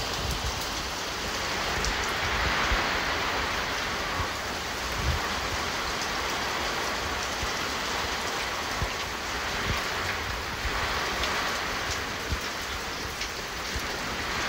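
Hurricane rain falling steadily in a dense hiss. Now and then a gust of wind rumbles on the microphone.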